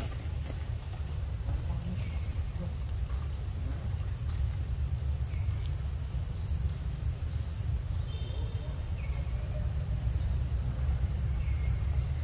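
Steady high-pitched drone of insects in forest undergrowth, with a short rising chirp repeating about once a second, over a continuous low rumble.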